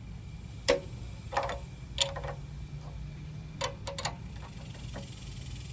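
Irregular sharp metallic clicks and clinks of hand tools and small parts on a Honda GX200 engine as its carburetor mounting nuts are undone. A few single clicks are followed by a quick cluster of four near the end.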